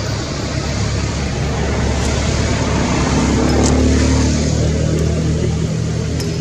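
A motor vehicle's engine running close by, getting louder to a peak about four seconds in and then easing off, as a vehicle passing would.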